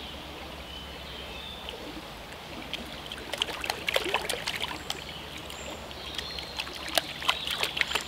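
Water splashing and sloshing in short bursts as a small dog is lowered into a creek, about three seconds in and again near the end.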